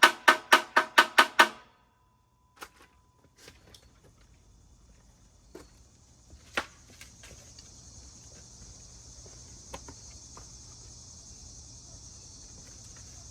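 A rapid, even train of pitched knocks, about five a second, stops about a second and a half in. After it comes faint, steady, high insect chirring, with scattered small clicks and taps.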